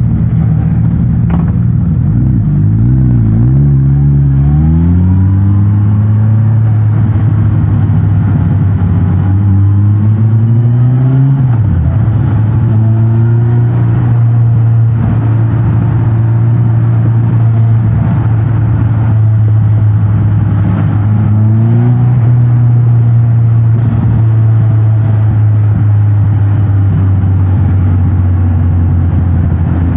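Suzuki GSX-S1000GT's inline-four engine on its stock exhaust, under way: the revs climb in steps through the gears over the first few seconds, rise again and drop off sharply about eleven seconds in, then hold a steady cruising note with a brief dip a little after twenty seconds.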